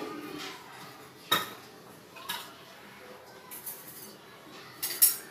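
Steel kitchen dishes and utensils being handled and set down: a few sharp clinks and clatters, the loudest about a second in and near the end.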